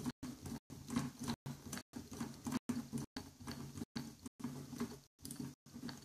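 Small electric screwdriver running as it drives a screw back into the plastic base of a mini PC, a low motor hum that stops and starts in short spurts.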